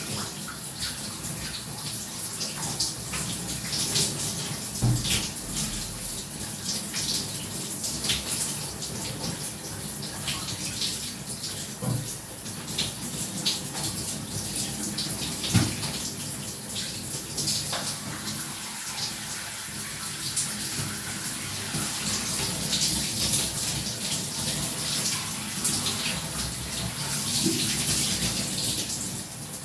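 Shower water spraying and splashing steadily, with a few sharper splashes; the loudest comes about fifteen seconds in.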